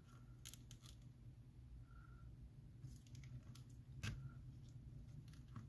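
Near silence over a low steady hum, with a few faint clicks and ticks from handling the iPhone while its battery adhesive strip is pulled out slowly. One sharper click comes about four seconds in.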